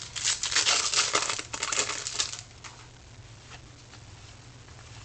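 Trading-card pack wrapper crinkling for about two and a half seconds, then only a few faint handling ticks.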